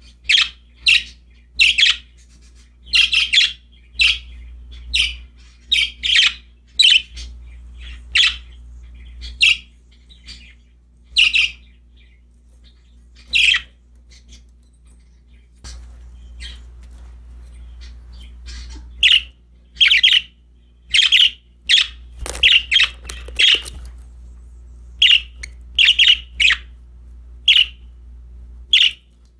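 Pet budgerigars chirping and squawking in short, sharp calls at irregular intervals, with a lull of a few seconds about halfway through. A faint steady low hum sits underneath.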